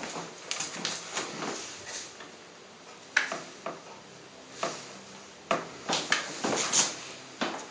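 Irregular handling noises, short clicks, knocks and rustles, as a heated wax applicator gun is picked up and worked along a leg during waxing.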